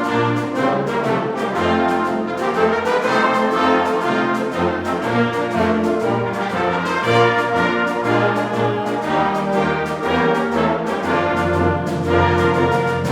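Community concert band playing, with the brass section prominent over sustained low bass notes.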